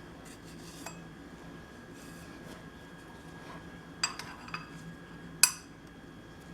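Light metallic clinks of steel tools or parts being handled: a small cluster about four seconds in and one sharp, louder clink about a second later, over a faint steady hum.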